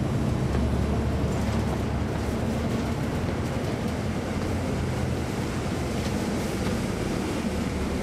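Caterpillar C13 ACERT inline-six diesel engine of a 2009 NABI 416.15 (40-SFW) transit bus running under way, heard from inside the cabin as a steady low drone over road noise.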